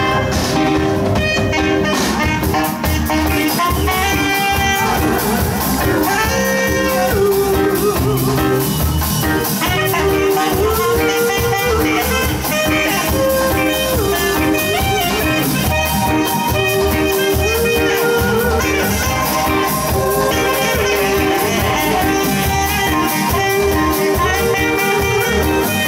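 Live band music with a saxophone playing the lead melody over drums and a rhythm section.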